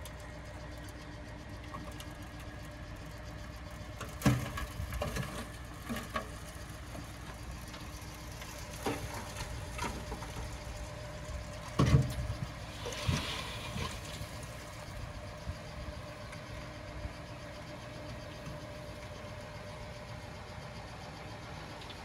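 Heavy earthmoving machine's diesel engine running steadily, with several sharp clanks and thumps, the loudest about four and twelve seconds in.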